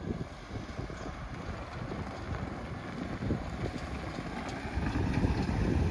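Wind buffeting the microphone: a low, gusty rumble that grows louder near the end.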